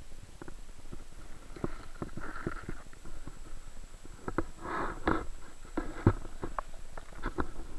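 Muffled underwater sound picked up through a camera's waterproof housing: water gurgling over a low rumble, with scattered knocks and clicks and louder gurgling bursts about two seconds and about five seconds in.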